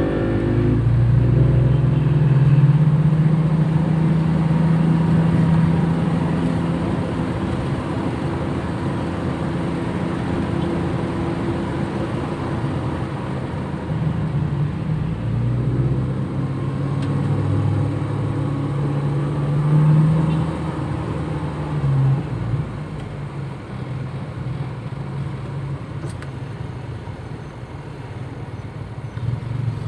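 Toyota Kijang engine running while driving, its pitch climbing and falling as it speeds up and eases off, with a last rise and drop shortly after the middle.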